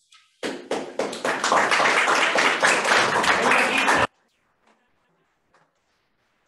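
A small audience applauding: a few separate claps about half a second in, quickly thickening into steady clapping that cuts off abruptly about four seconds in.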